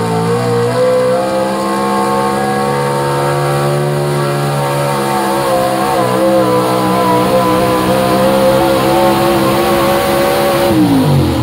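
Modified Chevrolet pickup's engine held at high revs at full throttle, pulling a weight-transfer sled in a truck pull: a loud, steady, high wail. Near the end the pitch drops sharply as the throttle comes off and the pull ends.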